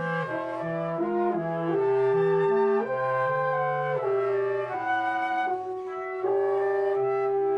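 Military wind band playing: woodwinds and brass in held chords over a moving lower line.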